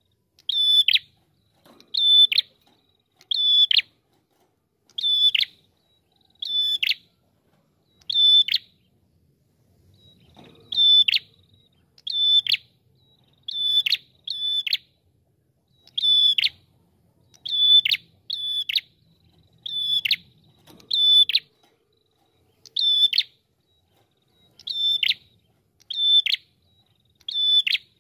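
Ashy tailorbird (red-headed prenjak) calling: short, sharp, high notes that drop steeply in pitch. They repeat about every second and a half, sometimes two in quick succession.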